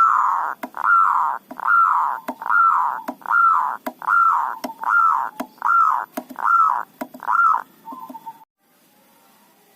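Zebra dove (perkutut) singing: a run of about ten arched coos, each rising and falling, a little over one a second, trailing off into a few short soft notes and then cutting off abruptly about eight and a half seconds in.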